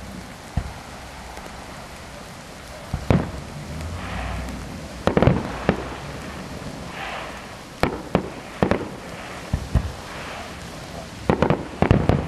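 Aerial fireworks shells bursting over the water, a dozen or so sharp bangs at irregular intervals, with quick clusters about five seconds in and again near the end.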